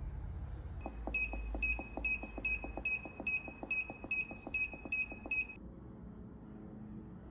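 Digital control panel beeping at each button press as the temperature and time are stepped down: a quick run of short, high beeps, about four a second, that stops about five and a half seconds in.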